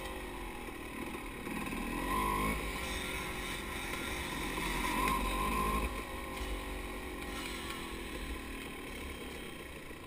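Dirt bike engine ridden at low speed, revs rising briefly about two seconds in and again around five seconds, then easing off to a lower, quieter running as the bike slows.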